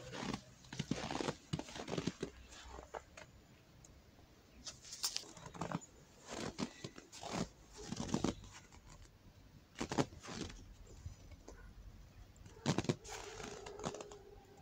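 Footsteps crunching in packed snow, in irregular clusters of short crackles with pauses between them.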